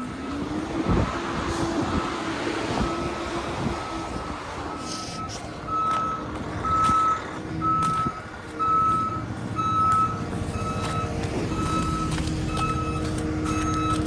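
A truck's reversing alarm beeping at an even pace, a little under two beeps a second, over the steady drone of its running engine.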